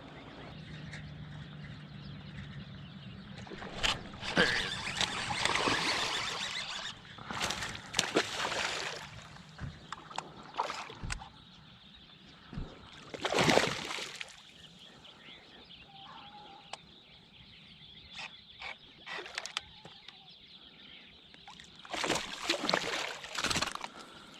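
Water splashing and swishing in several bursts, with scattered sharp clicks between them.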